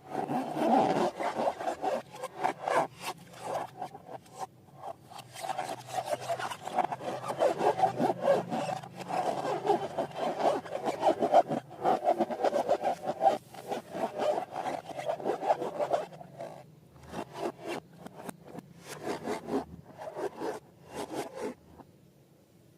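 Rapid, continuous rubbing and scraping strokes from hands working balloons and slime. They break into separate strokes later on and stop shortly before the end.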